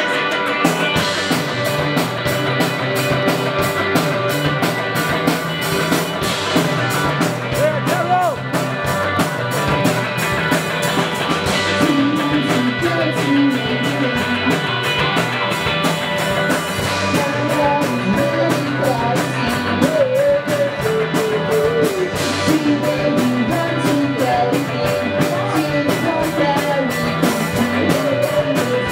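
Indie pop band playing live with electric guitars. A male voice comes in singing about eight seconds in.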